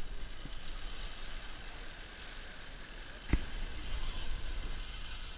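Steady wind and surf noise at the water's edge, with a single sharp knock a little over three seconds in.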